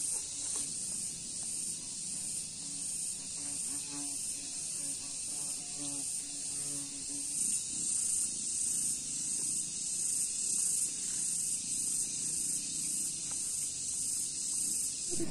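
Insects droning in the vegetation: a steady, high-pitched buzz with a regular pulse, with faint murmured voices for a few seconds in the middle.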